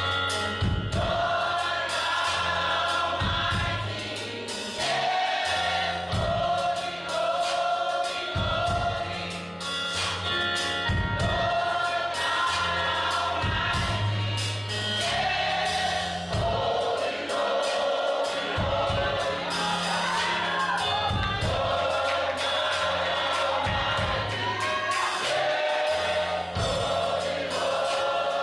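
Gospel choir singing over instrumental backing with bass and a steady beat.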